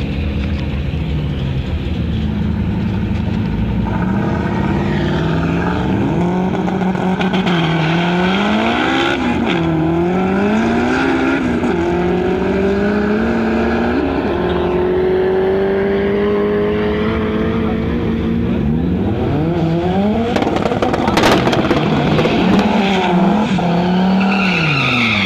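Drag-racing cars launch from the start line and accelerate down the strip, their engine notes climbing and dropping back again and again as they shift through the gears, then one long rising pull. Near the end another car revs up and down repeatedly at the start line.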